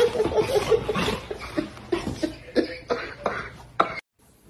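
A puppy play-fighting with a person's hands: short breathy vocal sounds mixed with quick slaps and pats of paws and hands, ending abruptly about four seconds in.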